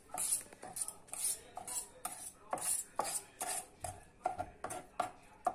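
Kitchen knife cutting soft cooked lampredotto (beef tripe) into small pieces on a plastic cutting board, with a fork holding the meat. The blade taps and scrapes the board in a steady run of short strokes, about three a second.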